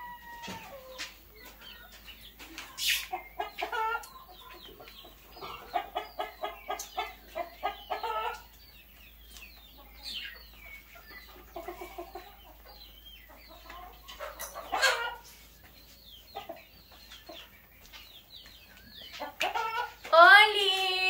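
Domestic chickens clucking: runs of short, quickly repeated calls, with a few louder single calls standing out.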